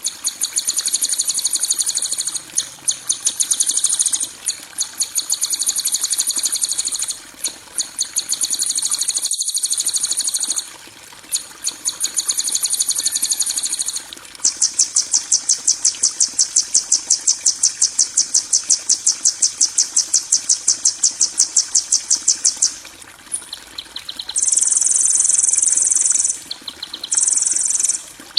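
Recorded harsh, insect-like buzzing trills of the 'kasaran' kind used to tutor songbirds. There are about seven high, rapidly pulsing bouts with short gaps between them; the longest runs for about eight seconds in the middle.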